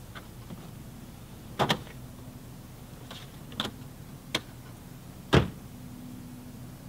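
Lighter knocks and clicks inside a parked car, then a car door thudding shut about five seconds in, the loudest sound.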